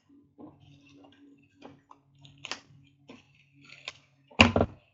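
Plastic shrink-wrap crinkling and clicking as a sealed trading-card box is turned over in the hands, with scattered short crackles and one loud knock or rip about four seconds in.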